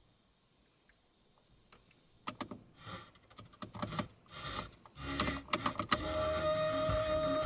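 Car FM radio being tuned across the band. About two seconds in, choppy bursts of static and fragments of stations cut in and out. About six seconds in, a station comes through steadily.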